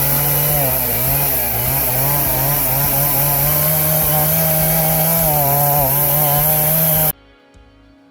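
Chainsaw in an Alaskan chainsaw mill running at full throttle through a log, its engine pitch wavering as it works through the cut. About seven seconds in, the sound breaks off abruptly to soft guitar music.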